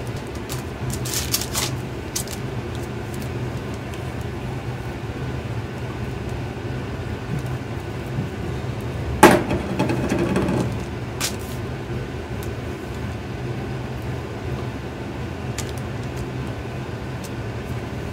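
Rubber spatula scraping and patting soft butter onto parchment paper, with scattered light taps and one sharper knock about nine seconds in, followed by a brief rustle. A steady low hum runs underneath.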